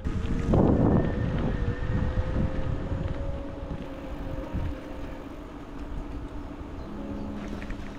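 A bicycle riding along a tarmac and gravel path: tyre rumble and wind on the bike-mounted microphone, loudest about a second in, with a steady hum underneath.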